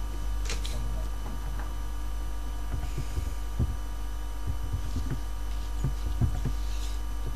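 Steady low electrical hum with a set of faint fixed tones above it, and about a dozen soft clicks and low thumps scattered irregularly through it.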